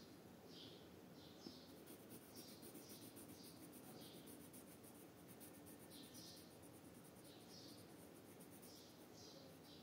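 Faint scratching of a red coloured pencil shading on paper, in short back-and-forth strokes that come in quick groups, with a pause of about two seconds near the middle.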